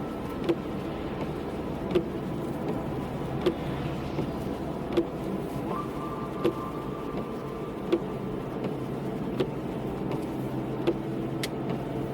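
Car driving with steady road and cabin noise, and a light click that repeats about every second and a half.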